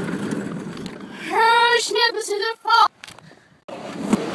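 A plastic wagon's wheels rumbling over pavement, then a child's high-pitched yell, played backwards, about a second in. The voice cuts off sharply and gives way to a short near-silence, then the rumbling hubbub of a bowling alley.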